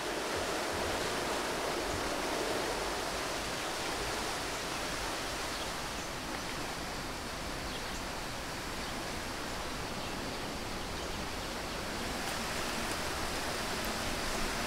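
Steady rushing outdoor ambience, an even hiss with no distinct events, and a few faint ticks near the end.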